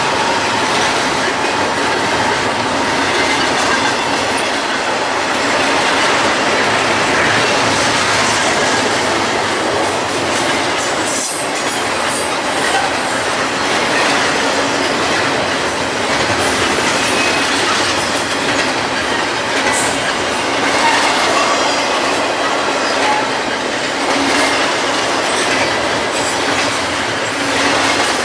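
Double-stack container freight train passing close by: a steady noise of steel wheels running on the rails, with an occasional click and a faint wheel squeal now and then.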